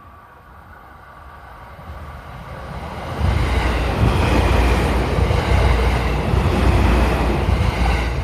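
Kabe Line electric train passing close by: the running noise builds, then about three seconds in becomes a loud rumble of wheels on rail that holds until near the end.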